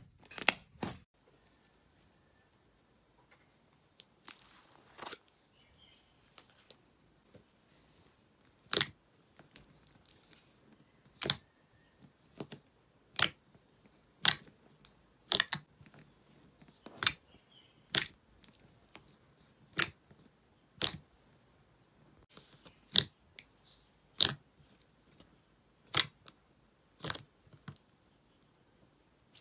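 Slime being pressed and handled, giving single sharp pops or clicks one every second or two, after a fairly quiet start with a few soft squishes.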